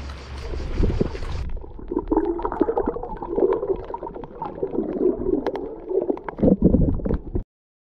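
Wind and water on the camera microphone at first, then, about a second and a half in, muffled gurgling and bubbling of seawater around the camera once it is under the surface, with scattered knocks. The sound cuts off suddenly near the end.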